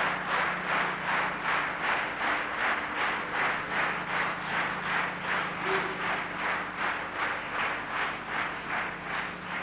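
Audience clapping in unison to a steady beat, about three claps a second, with a faint steady low hum underneath.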